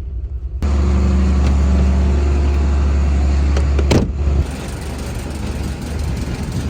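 Vehicle engine running with a steady low rumble. It gets suddenly louder about half a second in and drops back about four seconds later.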